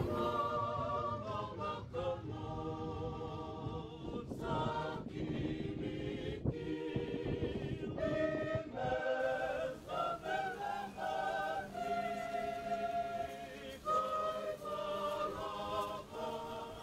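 A choir singing in harmony, several voices without clear instruments, with some long held notes.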